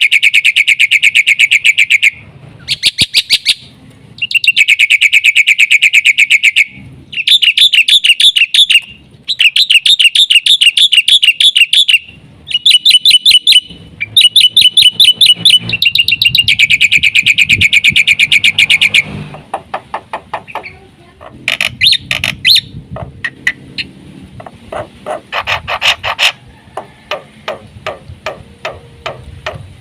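Black-winged myna (jalak putih) singing loudly: runs of rapid, repeated high trilling notes, each lasting about two seconds with short pauses between. About two-thirds of the way through, the song breaks into a looser string of sharp, separate chips and clicks.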